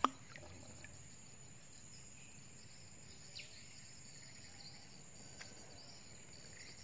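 Steady high-pitched drone of insects from the riverbank vegetation, with a few faint short downward chirps.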